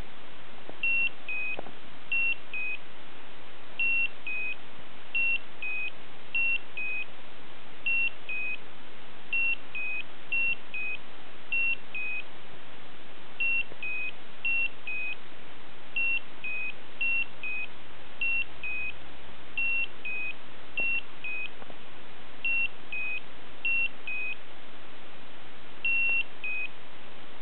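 Slendertone Men's Abs electric muscle-stimulation belt beeping over and over in two-note pairs, a higher tone dropping to a slightly lower one ("beep-bep"), about one pair every second or two at uneven gaps. It is not a low-battery, connection or pad-contact warning and it overrides the mute; the owner suspects the pads are too cold or dry.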